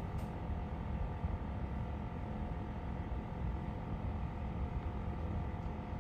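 Steady low rumble of room background noise with a faint, even hum; no distinct events.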